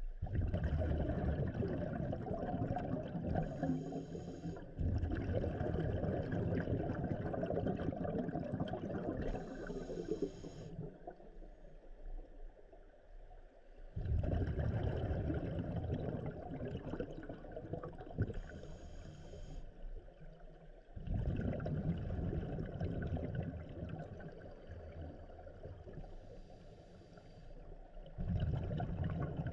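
Scuba diver breathing through an open-circuit regulator underwater. Exhaled bubbles gurgle out in long bursts of a few seconds, five times, and short high hisses of the breaths drawn in come between them.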